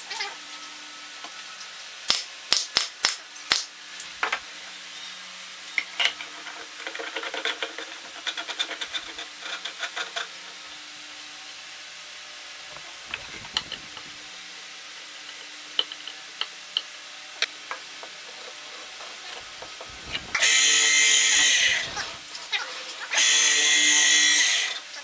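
Electric motor of a homemade drum sander spinning its sandpaper drum in two short runs of about a second and a half each, starting and stopping abruptly. Before the runs come a few sharp clicks and knocks of parts being handled.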